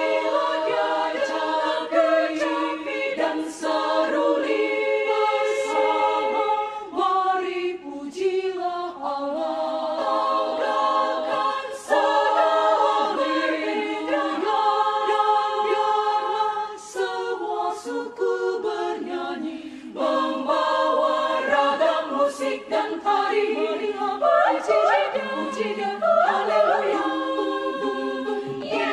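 Women's choir singing a cappella in several parts, long held chords with brief breaks between phrases.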